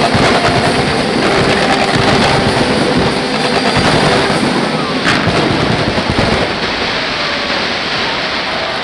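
Fireworks finale barrage: many aerial shells bursting at once in rapid, overlapping bangs, with one sharper crack about five seconds in, thinning a little toward the end.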